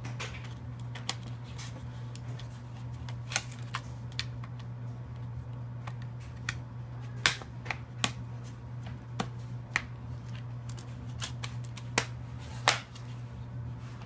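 Irregular sharp plastic clicks and taps from an HP ProBook 6550B laptop's hard drive bay cover being pressed and snapped into place and the screwdriver knocking against it, with a few louder clicks in the second half, over a steady low hum.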